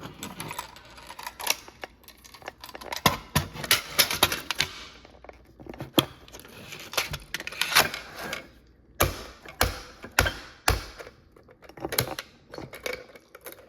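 A fire alarm pull station being worked by hand after being pulled down: irregular clicks and clacks from its handle and housing, with a few heavier knocks about nine to eleven seconds in.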